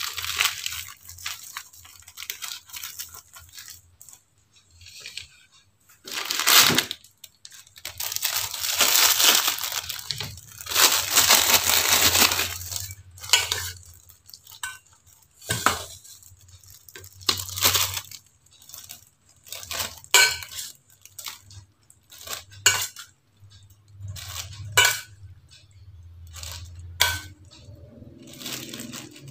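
A metal spoon clinking and scraping against a stainless steel bowl as food is scooped out, in a run of separate clinks, with a small plastic bag rustling in between.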